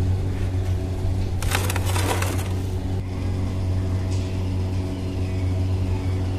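A long knife scraping and clicking through a crumbly slab of Mysore pak in a metal tray, in a quick burst about one and a half seconds in and briefly again near four seconds. Under it runs a steady low mechanical hum.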